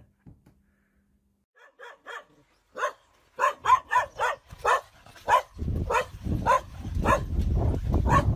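A dog barking over and over, about two or three barks a second. The barks are faint at first and loud from about three seconds in. A low rumbling noise starts under the barks about halfway through.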